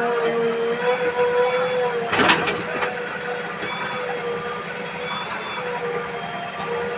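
JCB 3DX backhoe loader working, its diesel engine and hydraulics running with a steady, slightly wavering whine, and a sharp clank about two seconds in.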